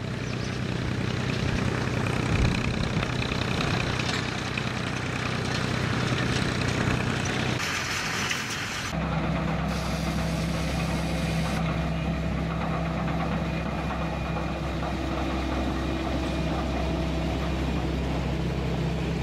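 Tractor engine running steadily while pulling a rotary hay rake, then, about nine seconds in, a different steady engine: a combine harvester running as it cuts the crop.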